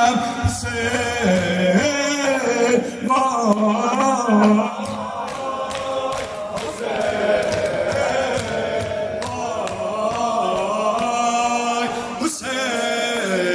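Male voices chanting a Muharram mourning lament (noha) in a group, wavering and sustained, with the sharp slaps of bare-handed chest beating (sineh-zani) keeping a steady beat.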